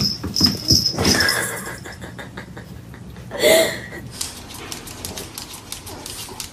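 A dog gives one short, loud yelp about halfway through, followed by light clicking and scratching. The first second holds a high, pulsing squeak.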